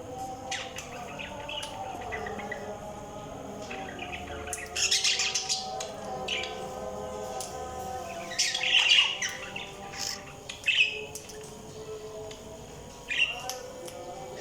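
Budgies chirping and warbling: a steady wavering chatter throughout, broken by louder sharp bursts of chirps about five, nine, eleven and thirteen seconds in.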